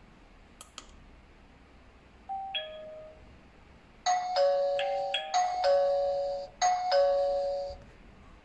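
Smart video doorbell being rung: after a couple of light clicks, a short two-note falling beep sounds, then the doorbell chime plays a tune of alternating clear notes for about four seconds.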